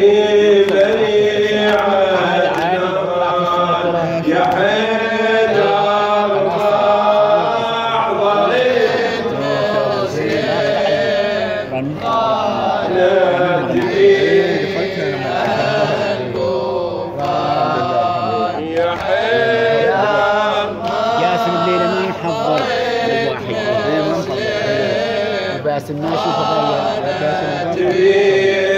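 A man chanting a nawha, a Shia mourning lament in Arabic, solo into a microphone, his voice rising and falling in long melodic lines without a break.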